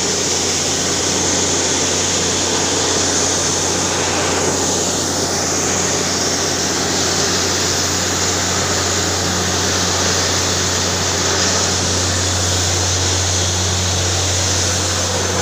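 Borewell drilling rig running steadily, its engine and compressed-air drilling making a loud, even drone with a constant low hum, as the bore flushes out water and slurry. The water coming up is taken for a good big water-bearing gap in the rock.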